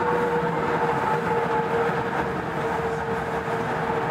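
Busan Metro Line 4 4000-series rubber-tyred train running between stations, heard from inside the car: a steady rumble of running noise with a continuous motor whine.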